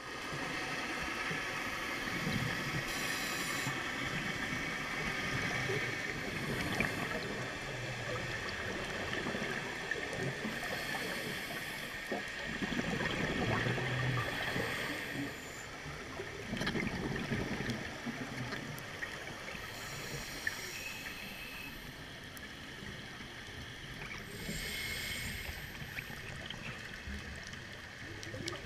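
Scuba breathing heard underwater through a camera housing: a regulator hissing on each breath and exhaled bubbles gurgling up every few seconds, over a steady muffled water hiss.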